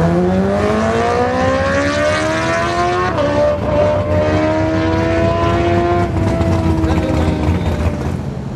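Sport motorcycle engine accelerating hard through the gears. Its note climbs, drops at an upshift about three seconds in, climbs again to a second shift about six seconds in, then holds and fades as it pulls away.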